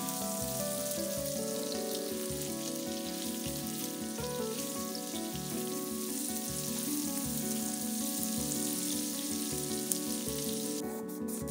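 Diced potatoes sizzling as they fry in a nonstick pan, turned now and then with a spatula, over soft background music. The sizzling cuts off near the end.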